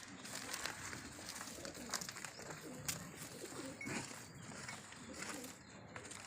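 Pigeons cooing softly, in low wavering calls mostly through the middle, with a few faint clicks and knocks around them.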